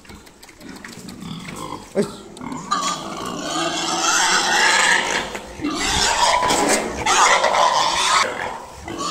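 Pig squealing in two long, loud bouts, the first starting about two and a half seconds in and the second about six seconds in: the distress squeals of pigs being caught and handled. A single sharp knock comes just before the first bout.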